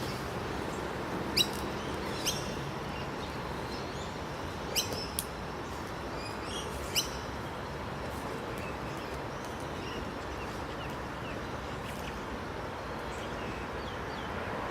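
Small birds chirping over a steady background hiss, with a few sharp, very short high chirps standing out in the first half, the first about a second and a half in.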